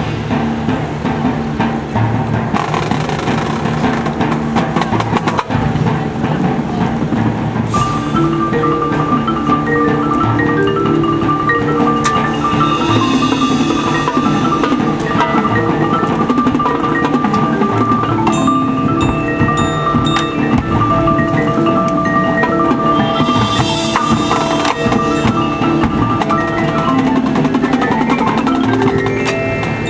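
Marching band music with a strong percussion part: mallet instruments such as marimba, xylophone and glockenspiel playing along with held notes from the band.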